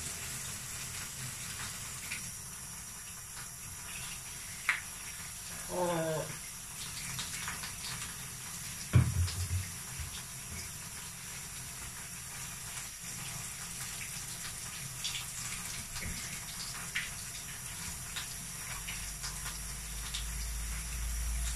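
Water running steadily from a hand shower into a bathtub as a dog is washed. A short pitched sound comes about six seconds in, and a dull thump about nine seconds in.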